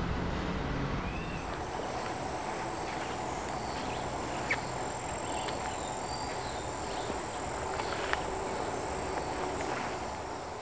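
Rural outdoor ambience: a steady high insect buzz, with a few short bird chirps and light ticks scattered through it. A low rumble fades out in the first second.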